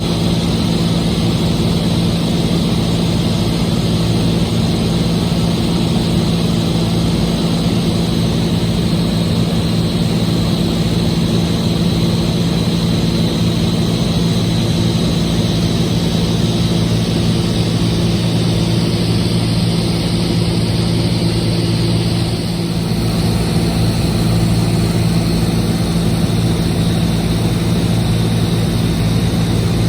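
Cessna 206H Stationair's six-cylinder Lycoming IO-540 piston engine and propeller, a steady drone. About two-thirds of the way through the sound dips briefly, then runs on slightly louder.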